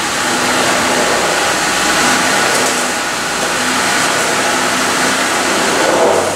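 Jeep Gladiator's 3.6-litre Pentastar V6 running at low speed, a steady sound as the truck creeps forward up onto a set of ramps.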